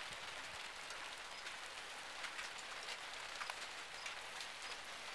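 Light rain of big, scattered drops falling on a wooden deck: a steady soft hiss with many separate small taps of single drops hitting the boards.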